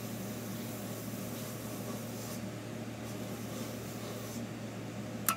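Electrochemical etching unit humming steadily, with faint scratchy rubbing of the electrolyte-soaked contact pad over the stencil on the stainless blade as the logo is etched. A sharp click near the end.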